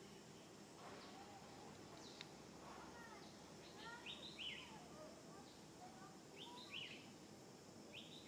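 Birds calling: a repeated pair of sharp, downward-sweeping chirps every two to three seconds, with softer, lower chirping notes in between.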